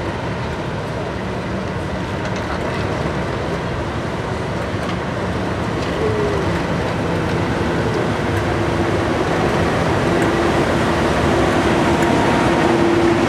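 A pair of English Electric Class 37 diesel locomotives running past, their engine noise growing steadily louder as they approach. A steady whine joins in about halfway and grows stronger toward the end.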